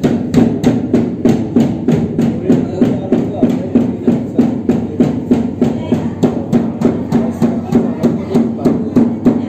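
Dhol, a two-headed barrel drum, beaten with a stick in a steady rhythm of about three strokes a second, over a steady low drone.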